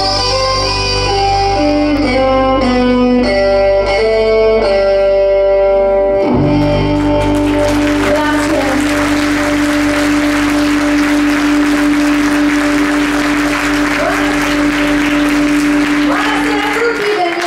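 A woman singing into a microphone over a guitar backing track; from about six seconds in the song ends on a long held note while the audience applauds, the applause running on until near the end.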